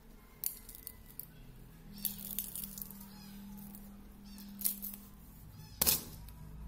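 Small plastic clicks and crackles as the cracked front glass and screen frame of a Samsung J1 phone are handled and separated. Near the end comes one louder, sharp knock as the shattered glass is set down on the wooden table.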